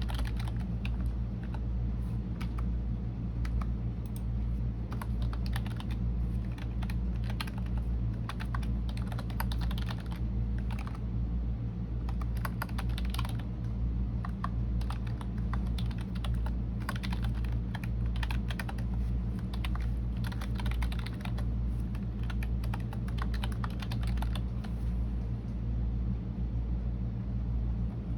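Typing on a computer keyboard: a continuous, uneven run of key clicks, over a steady low hum.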